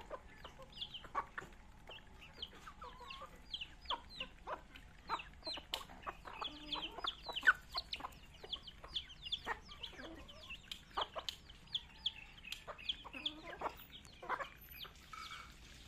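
Native chicken chicks peeping nonstop in quick, high, falling chirps, with hens clucking among them. Sharp taps of beaks pecking grain off a concrete floor come throughout.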